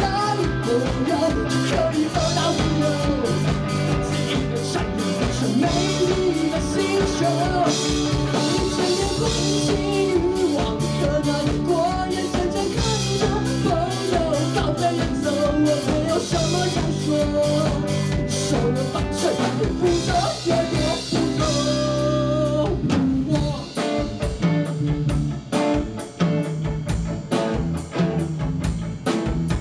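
Live rock band playing: a lead vocalist sings over distorted electric guitars, bass and a drum kit. About 22 seconds in the singing stops and the band carries on instrumentally, with the drum hits standing out more.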